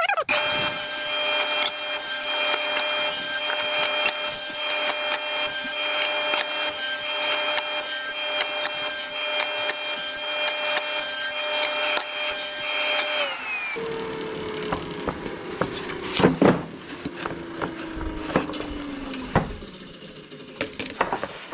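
Table saw with a quarter-inch groove blade starting up and running with a steady whine while a pine hive-body board is pushed through to cut a divider groove. About 14 seconds in the motor is switched off and the blade winds down, its pitch falling slowly. A few sharp wooden knocks near the end as the grooved boards are handled.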